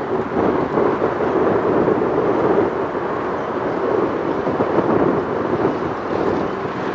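Helicopter passing overhead: a steady, loud rumble of rotor and engine.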